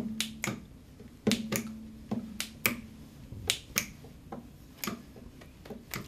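Fingers snapping: a few people snapping out of step, a string of sharp, irregular snaps about two a second.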